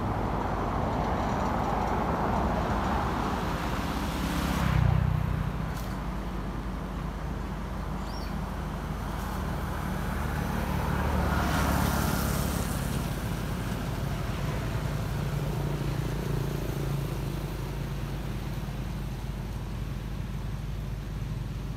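Road traffic: a steady low engine rumble, with passing vehicles swelling and fading about five seconds in and again around twelve seconds in.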